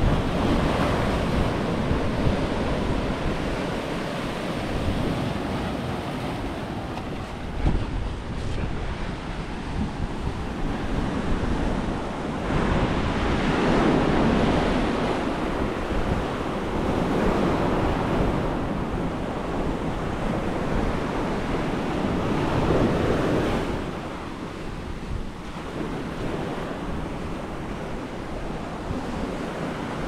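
Sea waves breaking and washing up onto the rocks and sand, swelling and fading every few seconds, with wind rumbling on the microphone.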